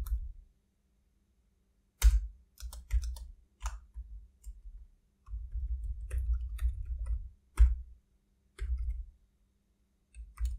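Typing on a computer keyboard: an irregular run of key clicks with dull low thuds. It starts after a single keystroke and about two seconds of quiet.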